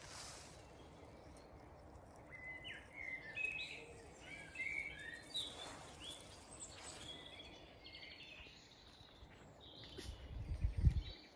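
Small birds singing, a run of short chirps and trills, over a steady outdoor hiss. Near the end there is a brief loud low rumble.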